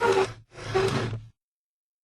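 Two short sliding scrapes, the second a little longer than the first.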